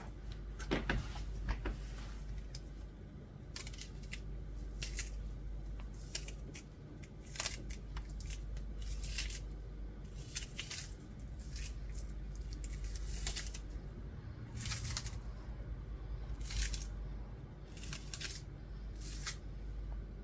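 Irregular short rustles and scrapes of food preparation by hand, a stroke every second or so, over a low steady hum.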